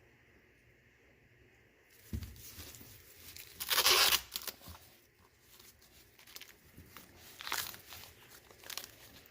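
An ear of fresh sweet corn being husked: the husk leaves tear and crinkle as they are pulled off in a few separate rips. The loudest rip comes about four seconds in, after a short thump.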